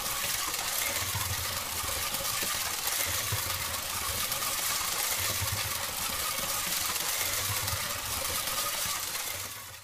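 Vintage LEGO 12-volt train locomotive running around its track: a steady whirring, rattling motor and wheel noise, with a low rumble that swells about every two seconds.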